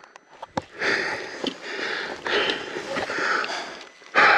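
A person breathing hard, several heavy, noisy breaths in quick succession, with a sharp click about half a second in.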